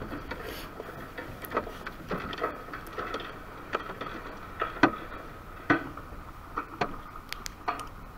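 Freshly landed guaibira (bluefish) flapping and jumping in the boat, giving irregular knocks and slaps against the hull or live well, over a faint steady hum.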